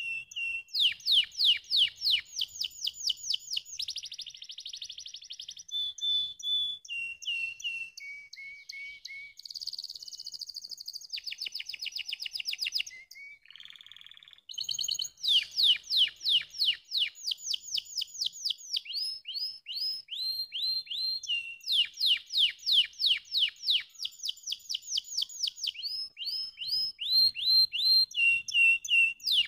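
Domestic canary singing a long song made of fast trills, each a rapid run of repeated notes sweeping downward, with a short pause about halfway through.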